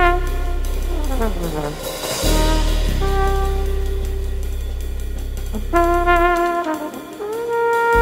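Jazz trombone playing long held notes, with a slide glissando falling about a second in, a wavering note around six seconds and a scoop up into a held note near the end. A deep sustained bass plays underneath and drops out briefly before the last note.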